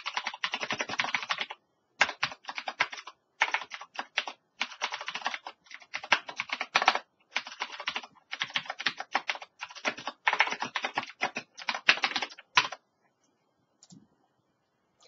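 Typing on a computer keyboard: quick runs of keystrokes with short pauses between them, stopping a couple of seconds before the end.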